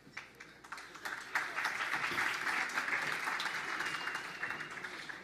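Audience applauding: a few scattered claps, then steady applause from about a second in that thins out near the end.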